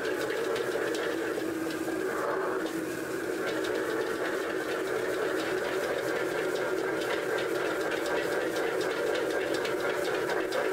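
Gas wok burner running with a steady rush under a wok, while a metal spatula scrapes and clicks against the pan as fried rice is stir-fried.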